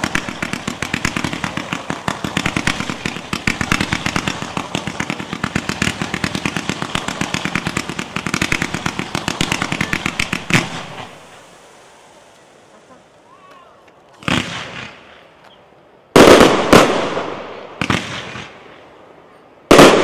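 Fireworks display: a multi-shot battery fires a fast run of shots for about ten seconds, ending in a sharper crack. After a short lull, aerial shells burst with loud separate bangs, each trailing off, about four times in the last few seconds.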